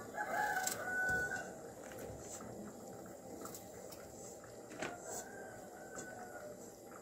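A rooster crowing twice: a loud call near the start and a fainter one about five seconds in.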